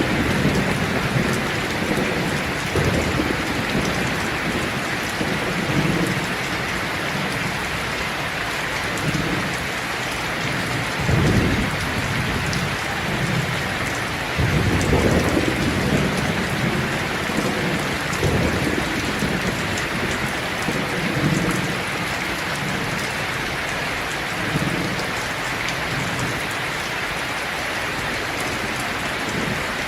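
Steady heavy rain hissing, with low rumbles of thunder swelling and fading every few seconds.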